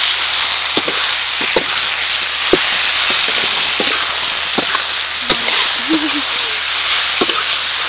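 Raw sliced beef and chopped garlic sizzling loudly in hot oil in a wok, stirred with a metal spatula that clicks and scrapes against the pan about a dozen times.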